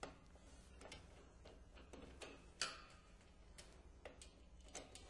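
Faint, scattered clicks and light metallic ticks of a Phillips screwdriver backing out the screws that hold a True cooler's front grill plate, with one sharper click a little past halfway.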